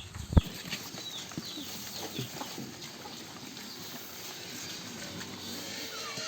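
Farmyard sounds: a single sharp knock about half a second in, then a few fainter knocks among many short, high chirps that fall in pitch.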